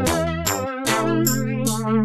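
Background music with a steady beat and sustained wavering pitched notes.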